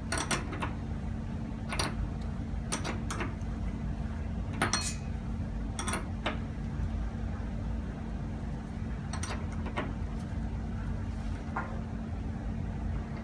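Scattered short metal clicks and clinks as a spanner and the small steel sample cell and nut are handled and tightened on a bench, over a steady low hum.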